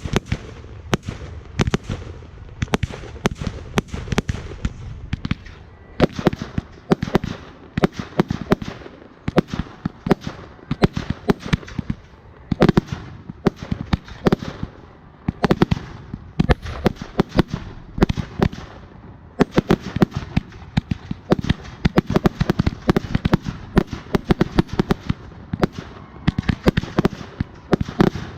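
Fireworks crackling and popping in a rapid, irregular stream of sharp cracks, several a second.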